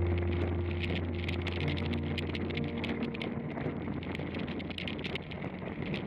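A bicycle ride: wind and road noise, with many irregular small clicks and rattles from the bike. Held notes of background music sound over it and fade out about halfway through.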